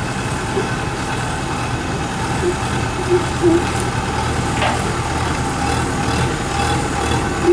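Kubota DC-93 combine harvester's diesel engine running steadily as the tracked machine reverses slowly. A few short, higher-pitched blips come around the middle.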